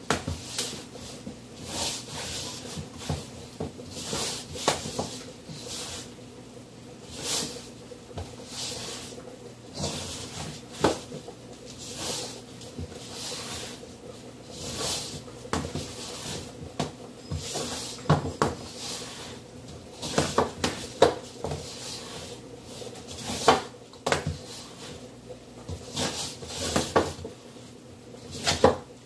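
Dough being mixed by hand in a stainless steel bowl: irregular knocks, slaps and scrapes of hand and dough against the metal bowl, coming faster and louder in the second half.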